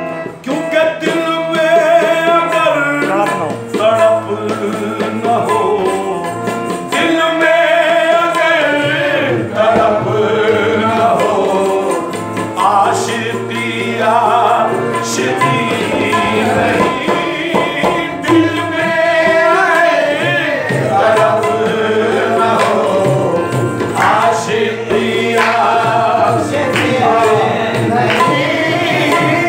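Qawwali: a male lead voice singing over a harmonium and tabla, with the group's hand-clapping and other voices joining in.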